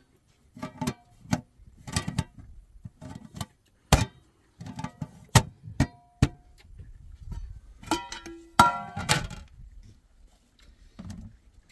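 Aluminium cooking pots and lids clinking and clanking as they are handled, about a dozen separate knocks, some ringing briefly; the loudest, ringing clank comes about two-thirds of the way through.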